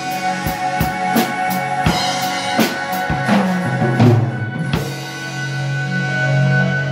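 Drum kit played along to a recorded rock track: a run of drum and cymbal hits that stops about five seconds in, leaving sustained keyboard chords.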